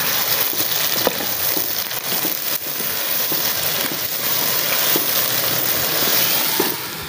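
Chicken pieces sizzling in hot ghee in a pot as a wooden spoon stirs them through freshly added ginger-garlic paste, with scattered knocks and scrapes of the spoon against the pot. The sizzle eases a little near the end.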